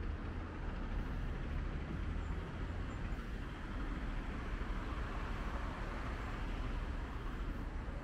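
Steady city road traffic noise, with a vehicle passing by around the middle.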